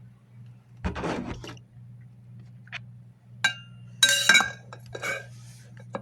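A drinking glass clinking and knocking against a hard surface several times, each knock leaving a short ring, the loudest clatter about four seconds in. A brief rustling noise comes about a second in.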